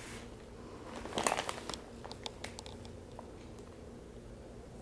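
Domestic cat eating a treat from a hand: faint crunching and small clicks, a quick cluster about a second in, then a few scattered crunches.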